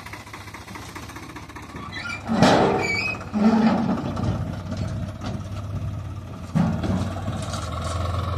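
Swaraj 744 XM tractor's three-cylinder diesel running steadily as it tips and pulls away from a dumped load of soil, with three loud knocks from the raised steel trolley body about two and a half, three and a half and six and a half seconds in.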